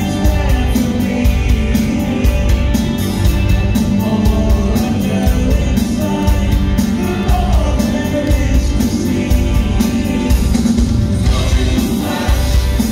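Rock band playing: a steady beat with heavy pulsing bass and regular cymbal strokes, and a lead line gliding up and down above it.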